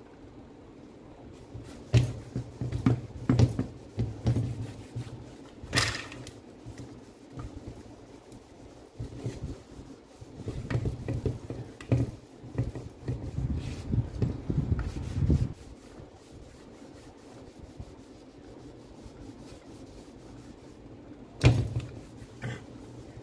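Gloved hands wiping a rotary hammer drill with a cloth and turning it over on a bench: irregular rubbing and handling noise with a few sharp knocks, the loudest about two, six and twenty-one seconds in.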